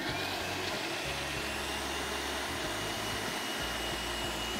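Häfele Nagold countertop blender's motor running at steady speed, blending a liquid mix of fruit juice, pineapple and cream. A high whine climbs slightly as it gets up to speed just after it is switched on, then holds steady.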